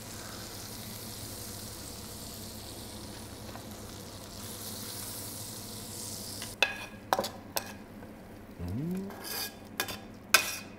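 Browned ptarmigan bones and vegetables sizzling steadily in a frying pan. About six and a half seconds in, metal tongs start clacking and scraping against the pan as the contents are pushed out into a stockpot.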